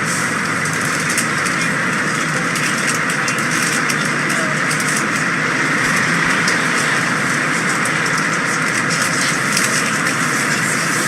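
MBTA Red Line subway train running on the rails: a steady, loud rumble of wheels and car noise with faint scattered clicks.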